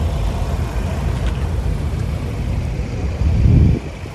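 Low, uneven outdoor rumble picked up by a handheld phone's microphone while walking. It swells loudly for about half a second near the end, then drops.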